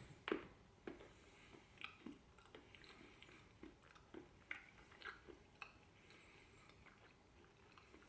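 A person biting into a piece of Milkybar Whirl white chocolate and chewing it, with a sharp crack just after the start and then faint, soft chewing clicks.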